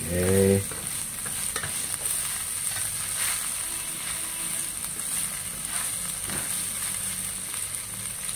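Boiled chicken intestines stir-frying in a stainless-steel wok: a steady sizzle, with a spatula stirring and tossing them and now and then scraping the pan.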